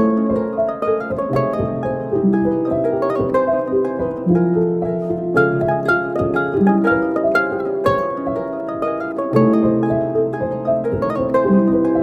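Background music of plucked strings, harp-like notes in a light, steady rhythm.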